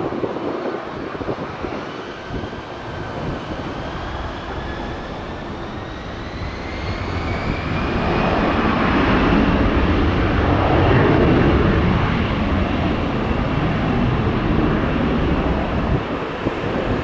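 Airbus A320-200 twin-engine jet departing: a whine rising in pitch as the engines spool up to takeoff thrust, then the jet noise swells, loudest about ten to eleven seconds in, and stays strong.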